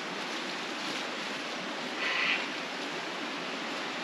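Creek water running over rocks, a steady even rush, with a brief louder hiss about halfway through.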